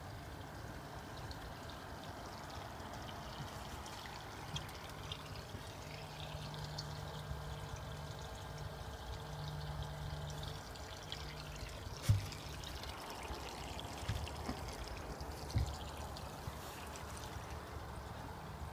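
Water pouring and trickling steadily through a koi pond's filter plumbing over a low, steady hum, with a sharp knock about twelve seconds in and two lighter ones shortly after.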